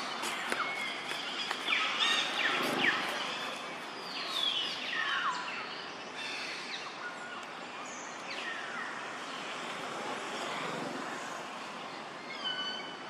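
Several high calls that slide down in pitch, the clearest a few seconds in, among short chirps.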